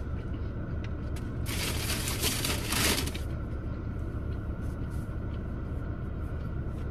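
Steady low hum inside a parked car's cabin, with a burst of crackling and rustling lasting about a second and a half, starting about a second and a half in, from handling and biting into a fried chicken sandwich and its wrapping during a mukbang.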